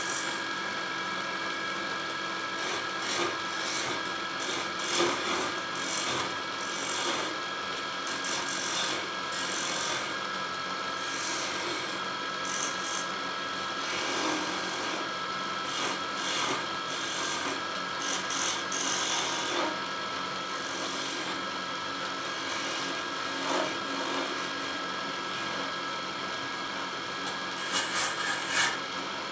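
Wood lathe spinning a wooden spindle while a hand-held turning chisel cuts into it: a continuous scraping hiss of the tool on the wood over the machine's steady hum. Louder scraping bursts come every few seconds, with a quick cluster of them near the end.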